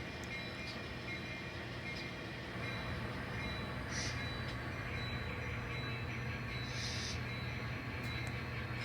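N scale model locomotive running on the layout: a steady low hum of the small motor and wheels on track, with two short hisses about four and seven seconds in.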